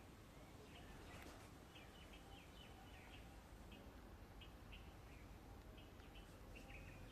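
Faint bird chirping: short high notes in small clusters over a steady low background hum.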